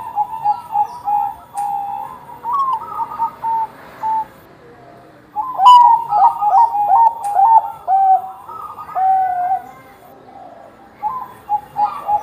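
A Bangkok-strain perkutut (zebra dove) singing two full cooing phrases. Each is a rapid run of short staccato coos that ends on a longer, lower held note. A third phrase begins near the end.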